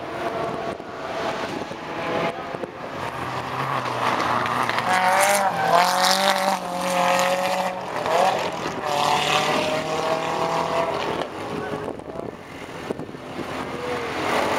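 Renault 8 race car engines revving hard on the circuit, the pitch climbing and dropping with each throttle lift and gear change. The sound is loudest about five to eight seconds in, fades a little, then builds again as a car comes close near the end.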